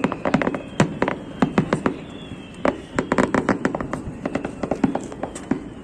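Aerial fireworks display: a rapid, irregular string of sharp bangs and crackles coming in dense clusters, with a faint whistle about two seconds in.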